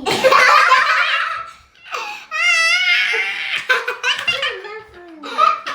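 Young girls shrieking and laughing in loud bursts, one after another, with a high wavering squeal near the middle.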